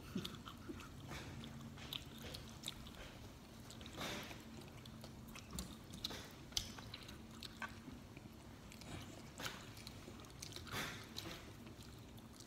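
A person chewing and biting pizza: faint, soft mouth sounds with scattered small clicks.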